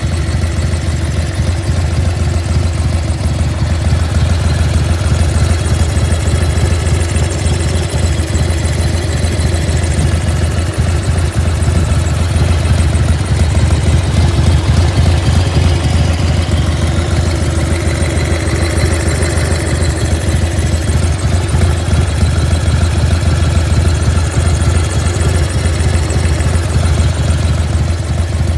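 Harley-Davidson Evolution 1340 V-twin engine of a 1995 Bad Boy idling steadily, making the strange noise that its owner is trying to track down.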